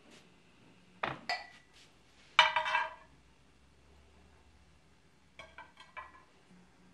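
Stainless steel cooking pots and lids knocking and clinking as they are set down and handled. There are two light knocks about a second in, a louder ringing clank at about two and a half seconds, and a few small clinks near the end.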